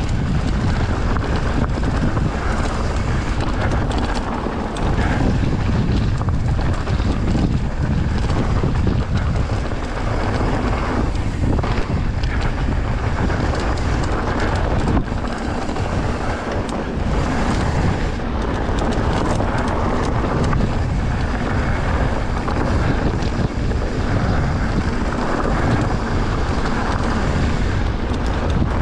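Wind noise on the microphone of a camera riding a mountain bike downhill at speed, over the steady crunch of tyres on loose gravel and the rattle of the bike over rocks.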